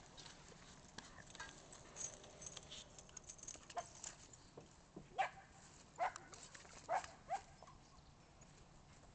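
Dog giving short, sharp barks, about five of them in the second half, the loudest around five, six and seven seconds in, with small clicks and taps between.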